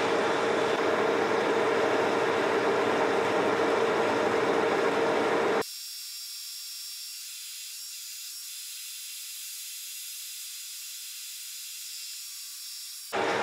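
Metal lathe running with its chuck spinning, taking a very light finishing pass on a shaft: a steady machine hum with a held tone. About halfway through, the sound abruptly turns thin and quieter, its low part gone, then comes back full just before the end.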